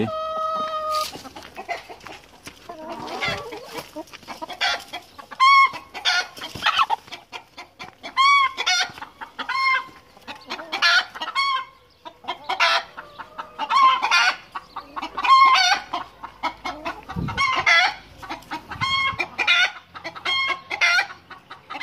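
A flock of chickens clucking and squawking, with short calls repeating about once a second, as the hens react unsettled to a newly introduced rooster.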